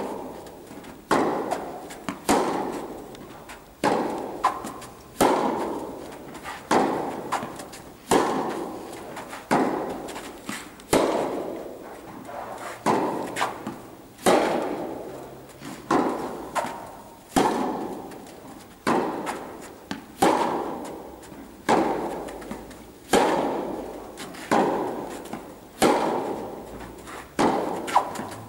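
Tennis balls struck by rackets and bouncing on an indoor court in a steady baseline forehand rally, a sharp hit about every second and a half. Each hit rings on in the large hall's echo.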